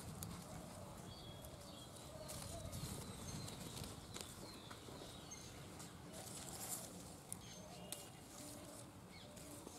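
Faint rustling and crackling of leaves and stems as chili peppers are picked by hand from the plant, with faint bird calls in the background.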